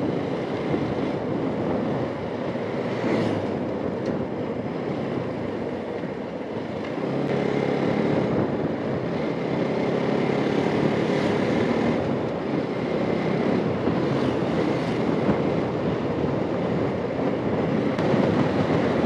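Motorcycle engine running under way, with wind and road rush over it. The engine note comes through stronger from about seven seconds in.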